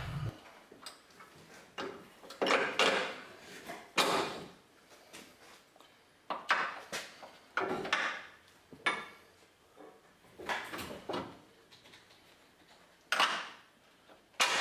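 New steel front lower control arm of a 2002 Chevy Suburban being worked by hand onto the torsion bar and pushed up into its frame mounts: a series of irregular metal clunks and scrapes, some ringing briefly.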